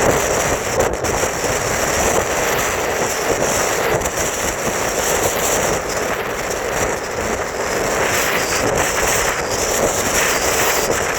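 Strong wind blowing on the microphone: a loud, steady noise with no distinct tones.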